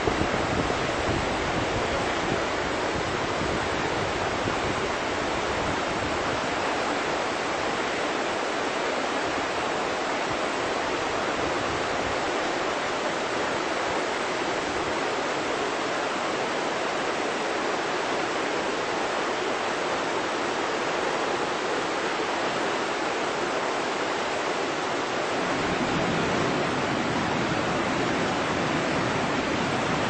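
Fast mountain river rushing over rocks and boulders: a steady, unbroken roar of white water. The sound deepens a little a few seconds before the end.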